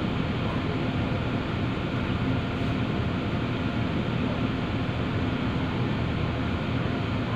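Harbour ferry under way, its engine giving a steady low hum together with the even rush of the boat moving through the water, heard from inside the passenger cabin.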